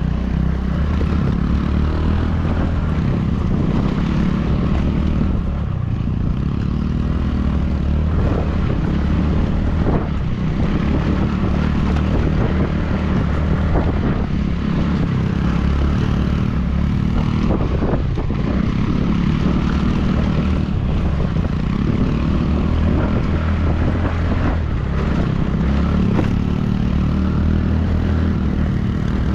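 A vehicle engine running steadily on the move, its low hum rising and easing a few times, with continuous road and wind noise.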